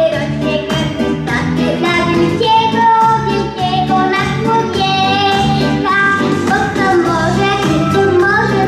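A young boy singing into a stage microphone over instrumental music accompaniment.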